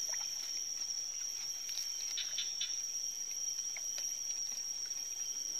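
Steady, high-pitched insect trilling in one unbroken tone, with a few faint clicks about two seconds in.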